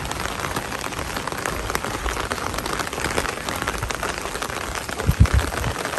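Steady rain, a dense run of small drop ticks, with a few low thumps about five seconds in.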